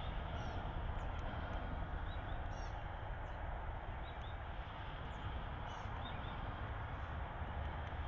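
Steady outdoor background hiss with a low rumble, and faint short bird chirps every second or so.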